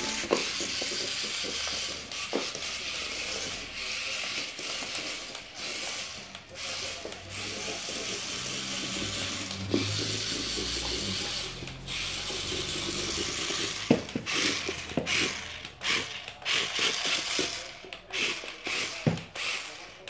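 Remote-control toy tarantula's small motor and gearbox whirring as it walks, with its legs ticking and scraping on a laminate floor. About two-thirds of the way through it changes to short stop-start spurts with sharp clicks.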